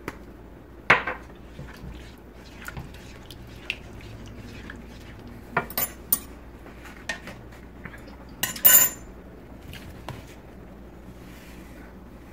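Scattered light knocks and clinks of a wooden spoon and kitchen utensils against a pan on the stove, with a short louder clatter about nine seconds in.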